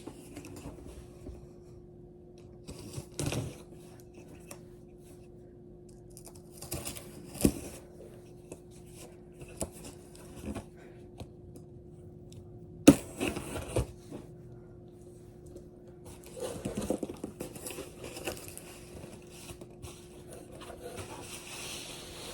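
A cardboard shipping box being opened by hand: tape tearing, cardboard scraping and packing material rustling in scattered bouts, with a sharp snap about 13 s in and busier rustling from about 16 s in.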